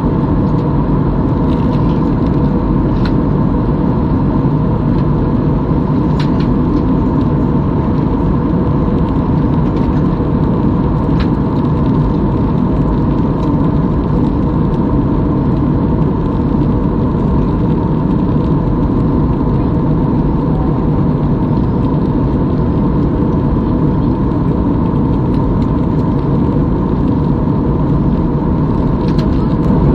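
Steady cabin noise inside a jet airliner during its descent: the engines and rushing air make an even rumble, with a faint steady higher hum over it.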